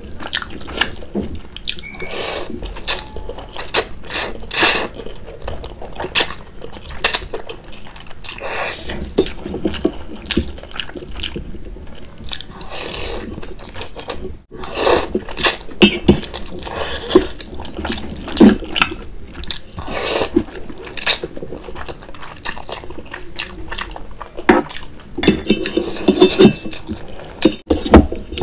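Close-miked wet eating sounds: soupy noodles slurped in and chewed, with irregular wet smacks and clicks and an occasional fork scraping the steel bowl.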